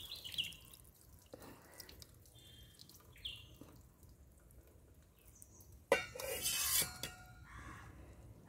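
Soaking water draining off rice from a tilted steel pot, pouring and dripping through the fingers onto a stone slab. A louder sudden splash comes about six seconds in and lasts about a second.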